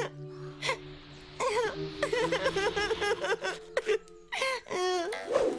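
A cartoon character's wordless vocal sounds, rising and falling in pitch, over soft background music with long held notes.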